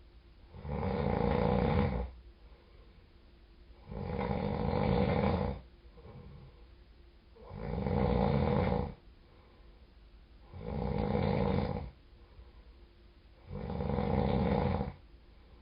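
A person snoring in a deep sleep: five long snores, about one every three seconds, with quieter pauses between them.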